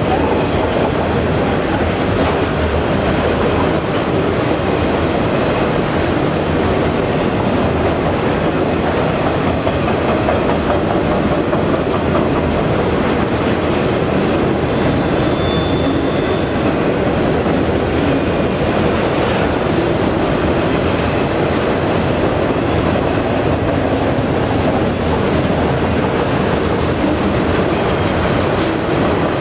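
Autorack freight cars rolling past: a steady, loud rumble of steel wheels on rail, with a brief high wheel squeal about halfway through.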